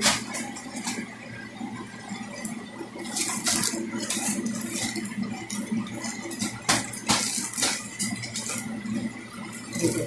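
Clear polythene packing bag crinkling and rustling in irregular bursts as it is handled around a folded garment, loudest about seven seconds in, over a steady low hum.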